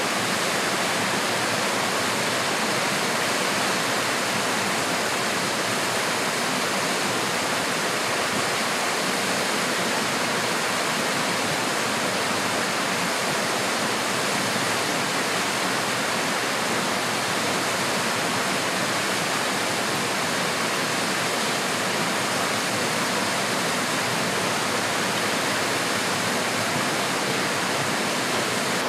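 Small stream cascading over rocks and boulders, a steady, even rush of falling water.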